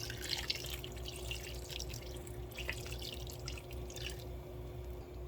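Liquid dripping and splashing in a cooking pot of pepper soup, in small irregular pops that thin out near the end, over a low steady hum.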